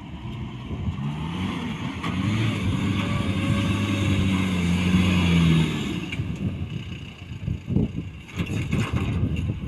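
A Mahindra pickup's engine revving hard under load on a sand climb, its pitch rising over the first two seconds and held high, then dropping off about six seconds in. After that, uneven rumbling with knocks and wind buffeting the microphone.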